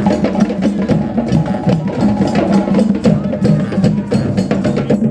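Percussion-heavy music: rapid, evenly spaced clicking strikes, several a second, over a steady run of low notes.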